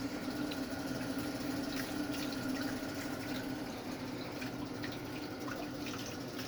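Water running steadily from an RV faucet, hot from the electric water heater.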